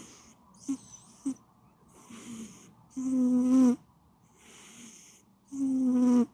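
A sleeping cat snoring: two loud, pitched snores about two and a half seconds apart, each under a second long. Softer hissing breaths come between them, with two small clicks near the start.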